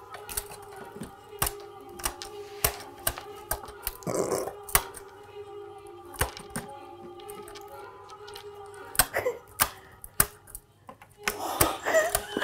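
Irregular sharp clicks and taps as pointed tools pick and scrape at dalgona honeycomb candy on small metal plates, with faint steady music underneath. A woman's laughter or voice comes in near the end.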